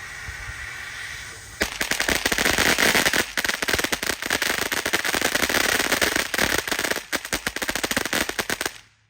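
A firework hisses steadily, then about a second and a half in a string of firecrackers goes off: a rapid, dense run of sharp cracks lasting about seven seconds that stops abruptly.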